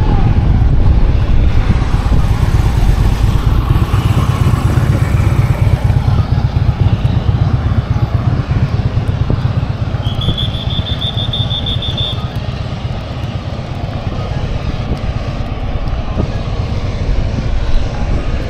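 Heavy, low rumbling rotor and engine noise of large military aircraft, the Marine One helicopter flight, running loud and steady.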